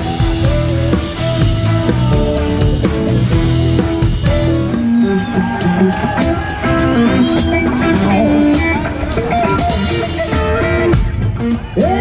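Live band playing: drum kit with cymbal hits keeping the beat under an electric guitar playing a lead line with bent notes, backed by bass and keyboard.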